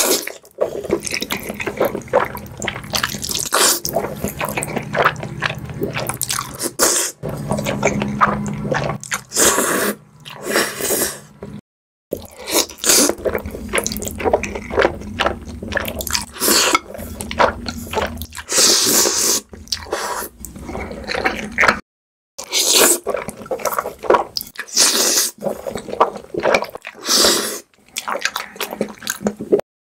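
A person loudly slurping black bean noodles and chewing them wetly, in repeated irregular bouts, with two brief cuts to silence.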